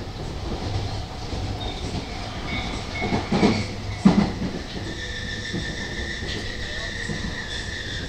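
Tobu 50000-series electric train heard from inside the carriage, rumbling along as it slows into a station. Two heavy thumps come about three and four seconds in, and a steady high whine sets in from about halfway.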